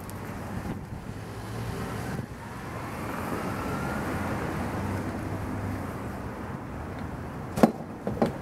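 A car passing on the street, its tyre and engine noise swelling and then fading, over light wind. Near the end come two sharp knocks, the loudest sounds here.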